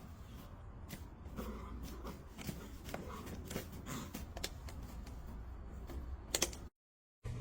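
Faint, irregular light clicks and taps over a low steady hum, cut off by a brief dead silence about a second before the end.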